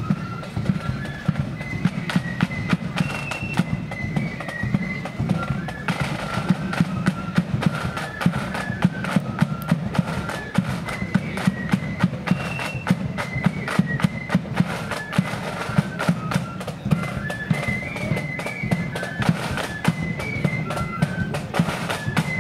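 Marching flute band playing a quick tune: massed flutes carry a shrill melody over rapid side-drum strokes and a bass drum beat.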